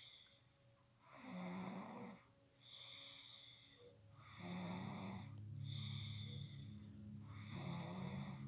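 An eight-year-old boy snoring heavily in his sleep: a long rough snore about every three seconds, louder in the second half.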